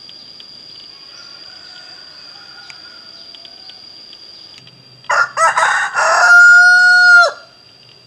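Rooster crowing once, about five seconds in: a few short choppy notes, then a long held final note that drops away at the end.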